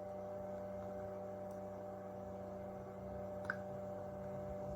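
Steady electrical hum from the soldering bench, with a single faint click about three and a half seconds in.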